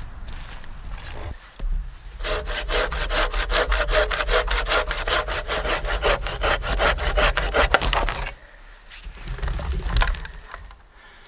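Folding pruning saw cutting through a fallen deadwood log in fast, even back-and-forth strokes, about five a second. The sawing starts about two seconds in and stops about eight seconds in, followed by a brief last rasp of the blade.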